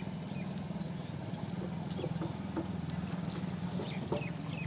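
Small freshly caught fish flapping on bare soil and against a net, making light scattered pattering ticks, over a steady low mechanical hum.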